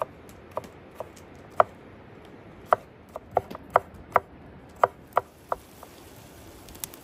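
Kitchen knife chopping vegetables on a wooden cutting board: a string of sharp, uneven knocks that stops about five and a half seconds in.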